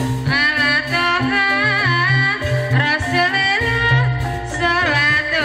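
Javanese gamelan music for an ebeg dance: a high wavering melody line over a steady, pulsing low beat.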